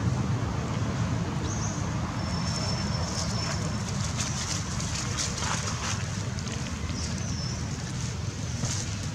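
Wind buffeting the microphone as a steady low rumble, with a few short, thin high chirps and a run of light crackles from dry leaves in the middle.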